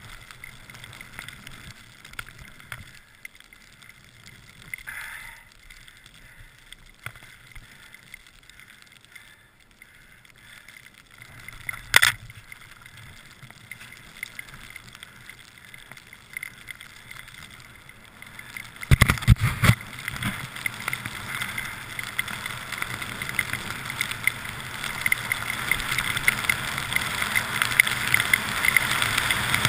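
Skis sliding through fresh snow with small knocks and clicks. There is a single sharp crack about twelve seconds in and a few heavy thumps a little later. After that comes a louder, steadily growing rush of skis and wind as the skier picks up speed on open packed snow.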